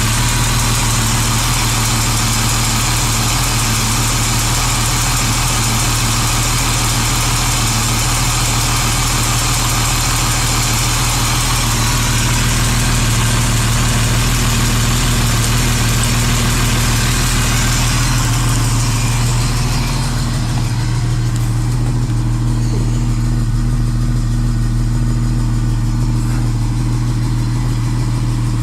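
BMW M1's M88 3.5-litre DOHC straight-six, with Kugelfischer mechanical fuel injection, idling steadily at around 850 rpm after a cold start. About two-thirds of the way in the sound turns duller as its hiss drops away.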